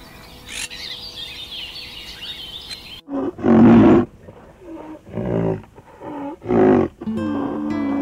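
A white rhinoceros giving a series of loud, deep calls, each under a second and about a second apart, the first the loudest, over soft background music. Before them, in the first three seconds, a bird chirps over the music.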